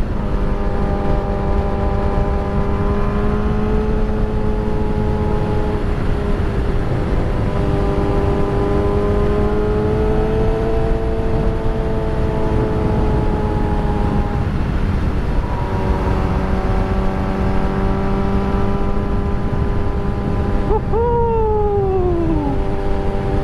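A motor vehicle engine running at a fairly steady speed under heavy wind noise, its pitch drifting slowly up and down. About 21 seconds in, a vehicle passes with a quickly falling pitch.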